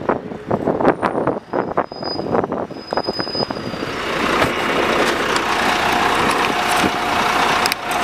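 Street vehicle and road noise: a run of rattles and knocks, then a steady rush of noise that builds from about four seconds in.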